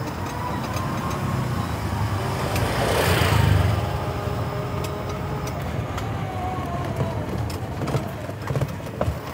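Ride in a covered electric bike: a steady low rumble of the tyres and body, with a faint whine from its electric motor that drifts slowly in pitch. A louder rushing noise swells and fades about three seconds in.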